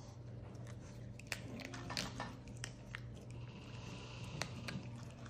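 Maltese dog eating from a person's fingers: soft wet chewing and lip-smacking clicks, scattered irregularly, over a steady low hum.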